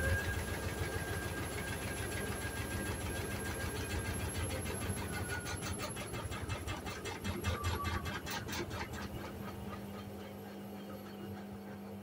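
Hoover Sudslock washing machine on a short spin burst: the motor whines steadily and the drum turns with a fast, even rhythm. About halfway through the whine fades and drops in pitch as the drum slows, and the rhythm dies away near the end, leaving a low hum.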